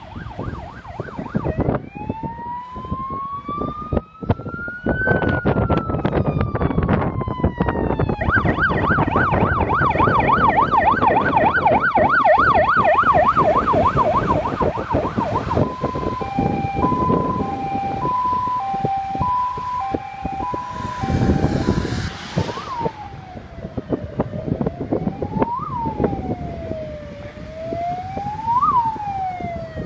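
Emergency vehicle sirens as a fire-service convoy passes on a call, over diesel engine noise. First comes one slow wail rising and falling, then a fast yelp, then a two-tone hi-lo for several seconds. After a brief hiss, slow wails repeat about every three seconds.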